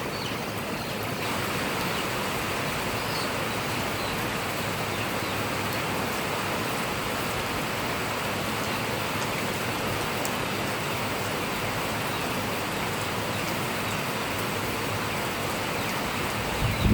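Heavy rain falling steadily, an even hiss of rain on the ground and surfaces. A brief low bump sounds right at the end.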